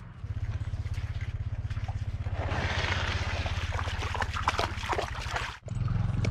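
Water trickling and splashing, with small scrapes and knocks, as an inflatable stand-up paddleboard is pushed off into shallow water, over a low steady rumble. The splashing grows from about two and a half seconds in and stops abruptly shortly before the end.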